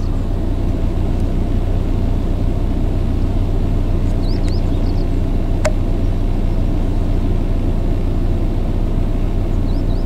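Steady low rumble of road traffic on the bridge overhead, with a few faint high bird chirps about four seconds in and again near the end, and a single sharp click shortly before the middle.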